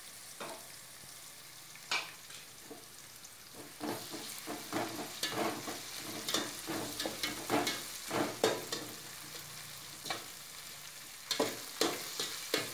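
Sliced onions with ginger-garlic-green chilli paste sizzling in hot oil in a metal pot. From about four seconds in, a metal spatula scrapes and clicks irregularly against the pot as the mixture is stirred and sautéed, with a short pause shortly before the end.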